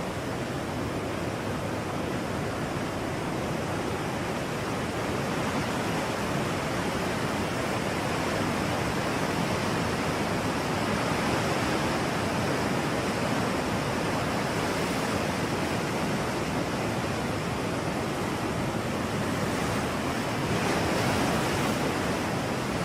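Ocean surf: a steady rush of waves that swells slowly, loudest about halfway through and again near the end.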